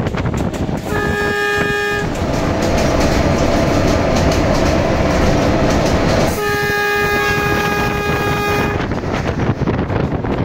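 Locomotive horn sounding twice: a short blast about a second in, then a longer blast of about two and a half seconds. Both sound over the steady noise of the train running along the rails.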